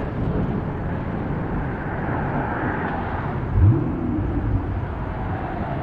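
Steady rushing noise of wind on the microphone and road noise while riding a mountain bike, with one short, loud low thump about three and a half seconds in.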